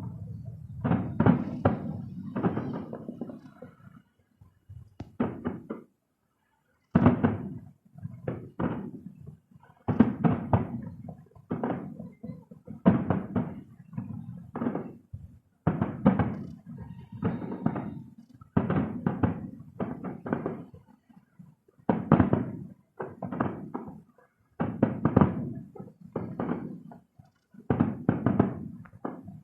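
Distant fireworks shells bursting as a run of dull booming thuds, about one a second, with a short pause a few seconds in.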